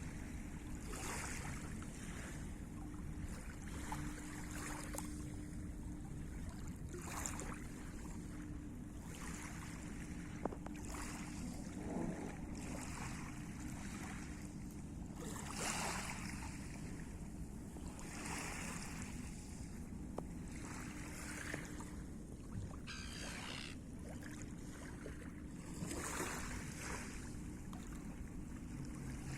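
Sea water splashing and washing in repeated surges every second or few, over a steady low hum.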